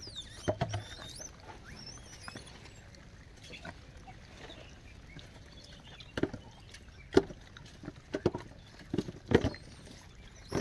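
A troop of gray langurs feeding on bananas: a quiet stretch broken by short scattered rustles and knocks, more frequent in the second half, with a few faint high chirps in the first seconds.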